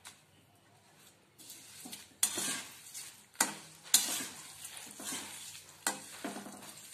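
A steel spatula scraping and knocking against a metal kadhai as steamed rice-flour dumplings are stirred through hot tempering oil, with a sizzling hiss. It starts about a second and a half in, with a few sharp knocks of the spatula on the pan.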